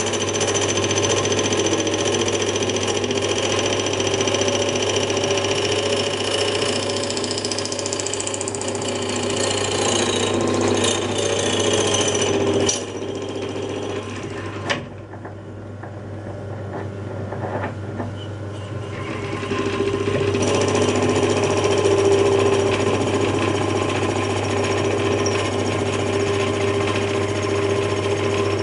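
Lathe running with a parting tool cutting into spinning brass bar to part off an eccentric: a steady motor hum under the rattling chatter of the cut. About halfway through there is a sharp click, and the cutting noise stays lower for a few seconds before it picks up again.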